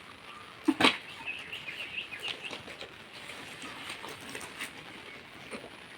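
Faint bird chirps over steady outdoor background noise, with two short sharp knocks just under a second in.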